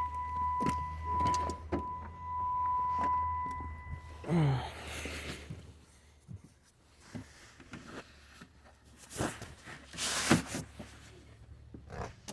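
A 1991 Camaro RS's 305 V8, overheated and with bad injectors and a blown head gasket, runs with a steady low hum under a steady high tone. About four seconds in it shuts off and its sound falls away. Scattered light clicks and knocks follow.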